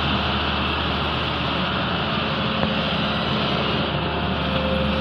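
Diesel engines of a Doosan wheeled excavator and a UD dump truck running steadily under load as the excavator swings sand into the truck, with a thin steady whine through the middle.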